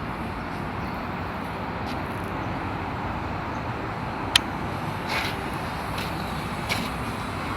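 Steady outdoor noise of wind and distant road traffic, with one sharp click a little over four seconds in and a couple of fainter ticks after it.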